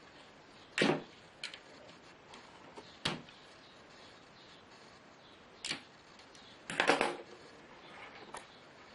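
Handling noises during the repair of a laptop cooler pad: a few sharp clicks and knocks about a second in, at three seconds and near six, with a louder rattling cluster about seven seconds in.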